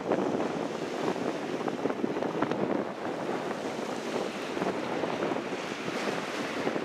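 Wind buffeting the microphone: an uneven, gusting rush of noise.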